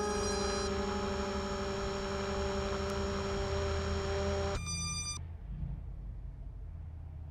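Steady hum with several held tones that cuts off abruptly about four and a half seconds in. A brief high glitch follows, then a fainter low hum.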